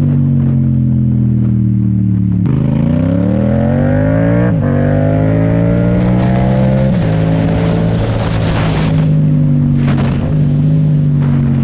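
Yamaha MT-07 parallel-twin engine through a full titanium Akrapovic exhaust, run without its dB killer, while riding. The pitch falls at first. About two and a half seconds in, the engine revs up hard, with sharp drops about two seconds apart as it shifts up through the gears, and then settles to a steady note.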